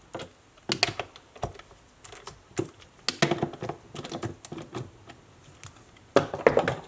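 Irregular clicks and taps of a hand screwdriver turning screws into the chainsaw's plastic housing, hand-tightening them, with a louder cluster of knocks near the end.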